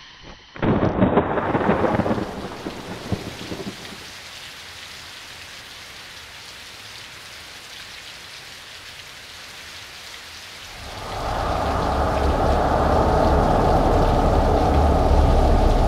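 Heavy rain with a thunder clap about half a second in that rumbles away over about three seconds. The rain grows louder and heavier about eleven seconds in.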